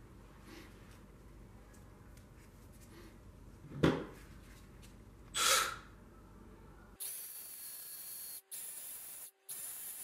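A sharp knock about four seconds in and a brief rush, then an aerosol spray can hissing in three bursts, each a second or so long, with short breaks between.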